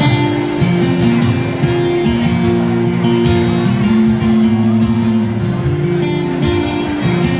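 Two acoustic guitars playing a song together, strummed chords without singing.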